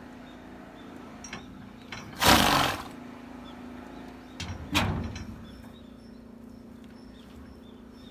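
A thoroughbred horse sneezing: two forceful blasts of air through the nostrils about two seconds apart, the first the louder, the second trailing off.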